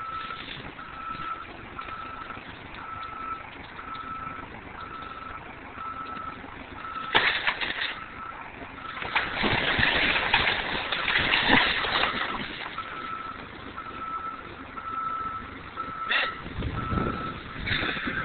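Telehandler's backup alarm beeping steadily, about three beeps every two seconds, over the machine's running. A few seconds of louder noise come in the middle.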